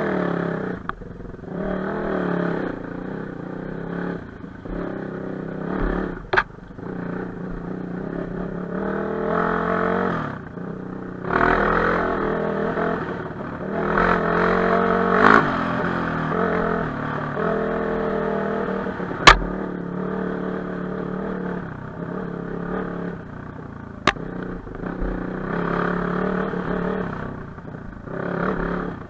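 Enduro motorcycle engine revving up and down under changing throttle, with clatter from the bike over rough ground. Three sharp knocks break in, the loudest about two-thirds of the way through.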